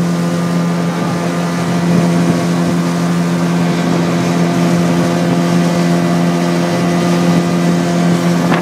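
Outboard motor of a small aluminium boat running under way at a steady speed, one constant pitch with no change in throttle, with water rushing past the hull.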